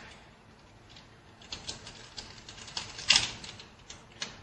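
Crinkling and tapping of an instant-noodle seasoning sachet being emptied into the pot, a scatter of small sharp rustles with one louder tap about three seconds in.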